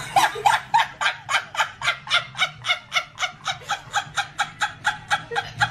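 A rapid, evenly spaced run of short clucking calls, about five a second, like a hen's cackle, kept up without a break.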